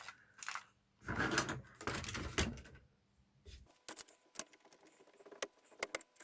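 Handling noise as a plastic Nerf blaster is gripped, then a run of small sharp clicks from about halfway in as a screwdriver works the screws out of the blaster's plastic shell.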